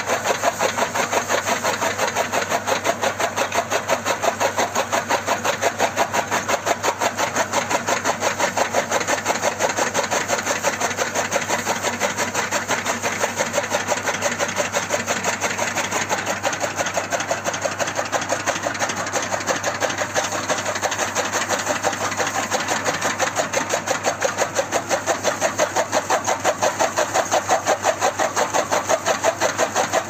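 A small motor running steadily with a fast, even pulsing beat.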